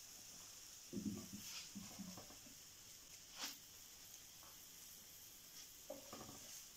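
Faint sizzle of egg-coated sandwich pieces frying in a non-stick pan, with a few soft knocks and scrapes as a wooden spatula lifts pieces from the pan.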